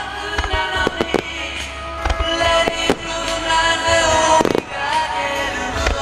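Fireworks shells bursting with sharp bangs and crackles over recorded music, a firework show set to a song; one burst stands out about four and a half seconds in.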